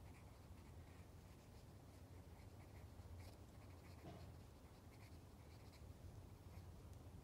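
Faint pencil strokes scratching on sketchbook paper, short and irregular, as small plants and shadows are drawn in. A steady low rumble lies underneath.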